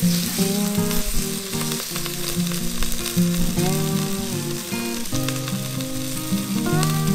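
Thinly sliced pork frying in sesame oil in a clay hot pot, with a steady sizzle. Light guitar music plays underneath.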